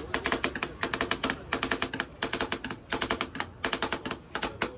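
Rapid, irregular sharp tapping clicks, roughly eight to ten a second, with a few brief pauses.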